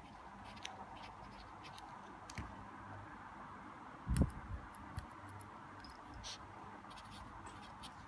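Staedtler 925 25 mechanical pencil writing on paper: faint, uneven scratching with small ticks. One louder low thump about four seconds in, as the pencil is handled.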